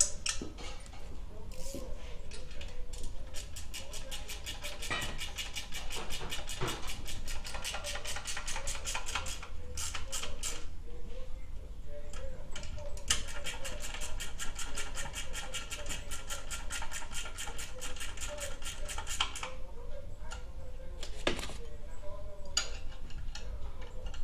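Ratchet wrench clicking rapidly as it turns a muffler mounting bolt, in two long runs with a short pause between, and a few single clicks and knocks before and after.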